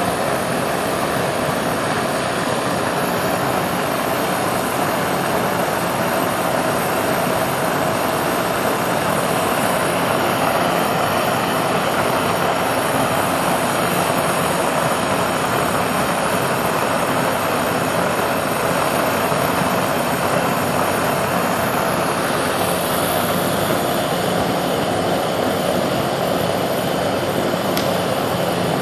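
Gas burner running with a steady, unchanging rushing noise, its flame held against a fireproofed test arch in a fire-resistance test.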